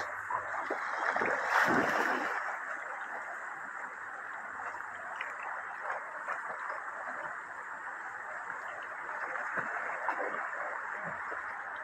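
A shallow river runs steadily over stones, with a Rottweiler splashing as it wades through the water. The splashing swells between about one and two seconds in, and there are smaller splashes later.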